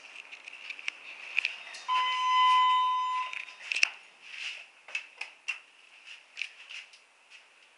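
A ThyssenKrupp-modernised Dover traction elevator gives one steady electronic beep, about a second and a half long, starting about two seconds in. Scattered sharp clicks come before and after it.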